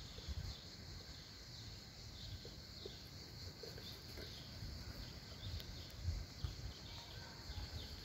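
Faint outdoor ambience: a steady high insect chirring, with uneven low thumps from footsteps on grass.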